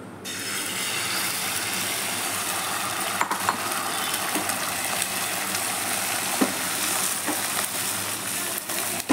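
Beaten egg hitting hot oil in a frying pan and sizzling. The hiss starts suddenly just after the pour and holds steady, with a few light clicks.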